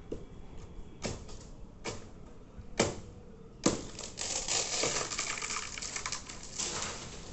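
Axe or machete chopping into a coconut tree: five sharp strokes about once a second, the last two the loudest. They are followed by a few seconds of dense crackling and rustling.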